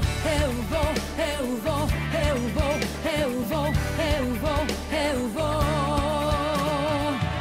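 Music: a song with a singer's wavering voice over a bass line and a steady beat.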